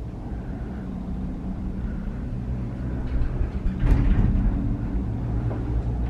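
Steady low mechanical hum and rumble inside a gondola cabin riding down its cable, with a brief louder swell about four seconds in.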